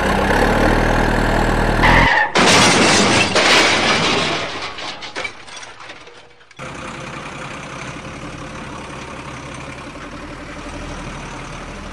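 Truck engine sound effect running steadily, then about two seconds in a loud crash that fades away over a few seconds, followed by a steady truck engine sound.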